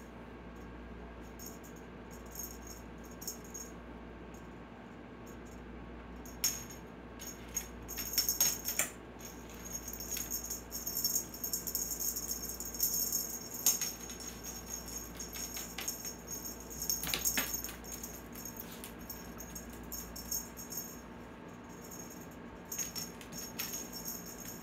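Small bell jingling in irregular bursts as a cat plays with a wand toy, with scattered light taps.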